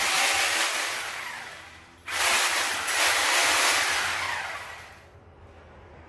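Handheld corded rotary hammer drill run in two short bursts, each starting suddenly and dying away over about two seconds.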